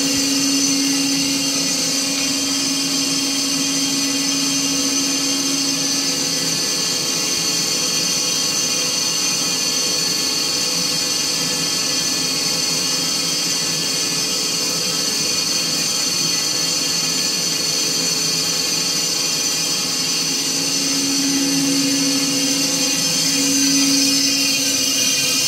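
BOMAR Workline 610.450 DGH semi-automatic metal-cutting band saw running steadily, a constant machine hum with high whining tones. A low hum is stronger near the start and again a few seconds before the end.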